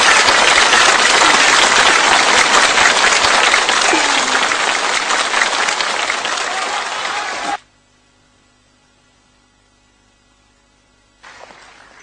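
Audience applauding steadily after a sung aria, cut off abruptly about two-thirds of the way through; a quiet stretch follows, and faint noise returns near the end.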